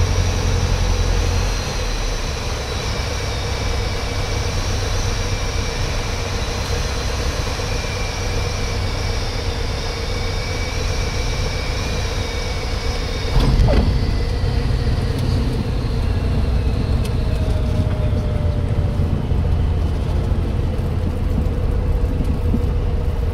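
Single-engine propeller airplane heard from inside the cockpit while landing: the engine and propeller drone steadily and the low end drops back about a second and a half in. The wheels touch the runway with a thump about thirteen seconds in, and the engine then runs lower during the rollout, with a tone slowly falling in pitch.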